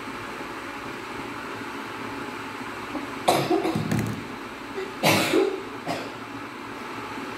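A woman coughing off-camera: a sharp cough about three seconds in, then another about five seconds in, followed by a smaller one. Under them runs the steady hum of a ventilation fan.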